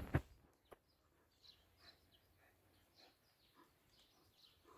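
Quiet outdoor ambience with faint, scattered small-bird chirps. A short loud burst right at the start.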